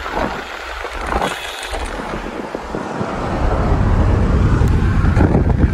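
Car driving at speed, heard from inside the cabin: steady road and wind noise with a low rumble that grows louder about halfway through.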